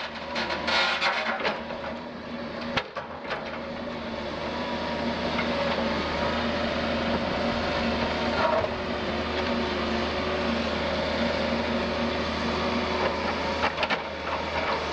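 Doosan DX180 LC excavator's diesel engine running steadily as the machine works, with a cluster of sharp cracks and knocks in the first three seconds and a few more near the end, like wood and roots breaking under the bucket.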